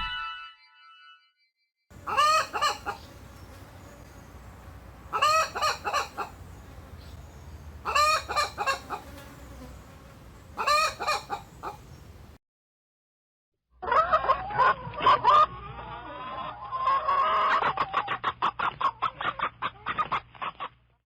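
Rooster crowing four times, about three seconds apart, then after a short pause chickens clucking in a fast run of short calls.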